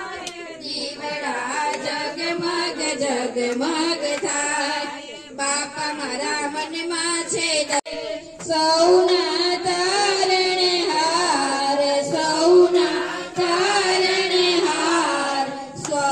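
Devotional singing with music, an aarti hymn to Ganesh with long wavering held notes, louder in the second half.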